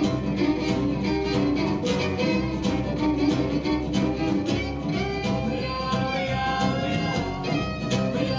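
Live acoustic string band playing an instrumental passage: fiddle over strummed acoustic guitars and upright bass. In the second half the fiddle holds and slides between notes.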